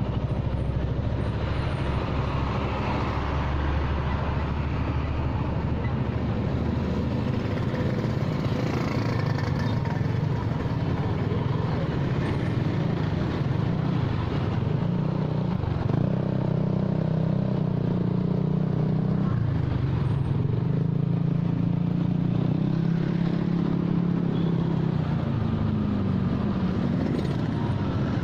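Motorcycle engine running while riding in traffic, its note rising and falling with the throttle, most clearly in the second half, over steady road noise from the surrounding vehicles.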